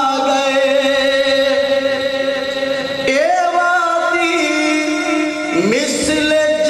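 A man singing a Punjabi poem (nazm) into a microphone in long held notes, sliding up to a new pitch about three seconds in and again near the end.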